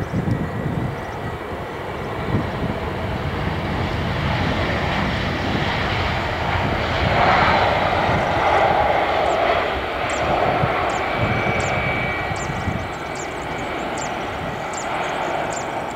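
Jet engines of an Airbus A320 airliner on its landing roll: a steady rumbling noise that swells to its loudest about seven to ten seconds in, as the engines spool up for reverse thrust, then eases off.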